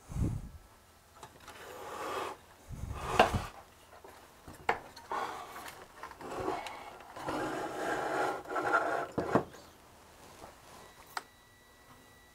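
Rubbing, scraping and several sharp knocks as the opened metal chassis of an old oscilloscope is shifted about on a wooden workbench, dying down near the end.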